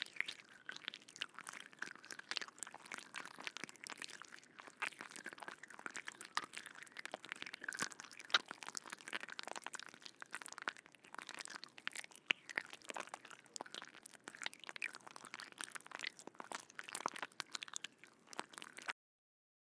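Insects making a dense, irregular crackling and clicking that cuts off suddenly near the end.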